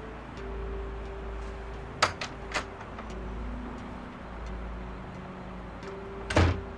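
Metal clicks of a glass entrance door's lock and handle as the door is opened, three sharp clicks about two seconds in, over a steady low background hum. A louder knock near the end.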